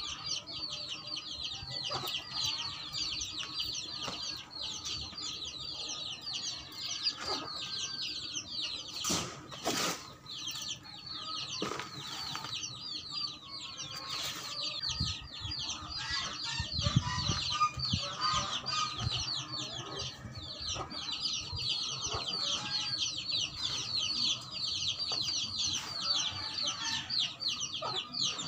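Chickens clucking over a steady run of rapid, high-pitched chirping, with occasional scrapes and knocks from a shovel digging into soil.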